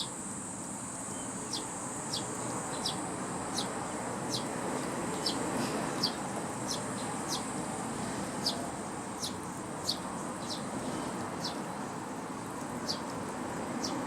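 Eurasian tree sparrows chirping, short falling chirps about one to two a second, over a steady high-pitched insect drone.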